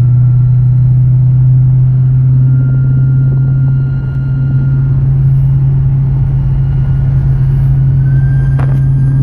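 Cadillac CTS-V making a loud, steady low hum with faint higher whining tones, which the owner is pretty sure is a failing driveshaft carrier bearing. A brief click sounds near the end.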